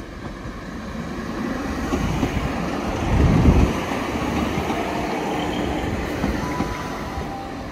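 GWR Class 150/2 Sprinter diesel multiple unit running into the station past the platform, its underfloor diesel engines and wheels on the rails rumbling. The noise builds as the front of the train draws level, is loudest about three seconds in, then eases as the coaches roll past.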